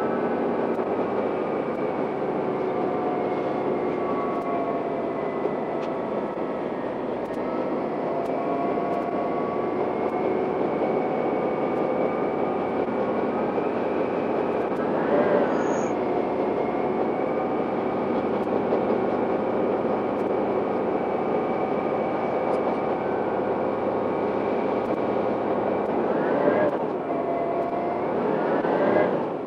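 Diesel railcar running, heard from inside the car: a steady engine and running drone with several held tones, whose pitch sweeps up briefly about halfway through and twice near the end.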